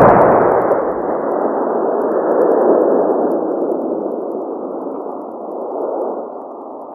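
A sudden blast right at the start, then a long rushing noise that slowly fades over the following seconds.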